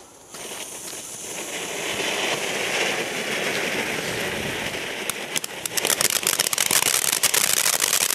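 Small ground fountain firework hissing as it sprays sparks, building over the first couple of seconds. About five seconds in it breaks into dense crackling, many rapid pops.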